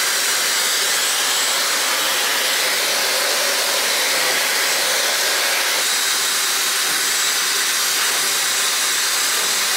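Dyson Supersonic hair dryer blowing at steady speed: an even, loud rush of air with a faint high whine, as it dries wet hair.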